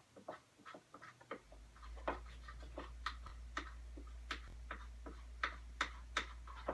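Glue-and-soap slime being stirred and scraped in a bowl: irregular sticky clicks and smacks, a few a second. A low steady hum comes in about a second and a half in.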